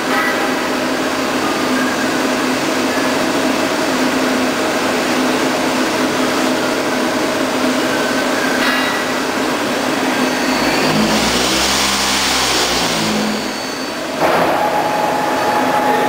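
Mazak Integrex 200SY CNC turning and milling centre running a program: a steady machine hum with whining tones. A louder rushing passage comes a little past the middle, then a short dip, and a new higher whine sets in suddenly about two seconds before the end.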